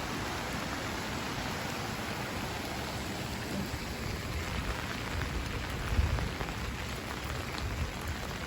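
Steady rain falling, not very hard, as an even hiss, with a brief low thump about six seconds in.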